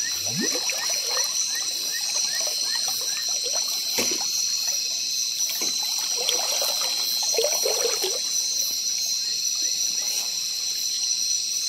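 Water trickling and splashing over a steady high-pitched drone, with a run of faint, evenly spaced ticks, about three a second, in the first few seconds.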